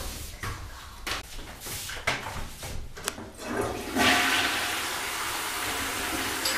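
A few light footsteps, then a toilet flushing about four seconds in: a sudden, steady rush of water.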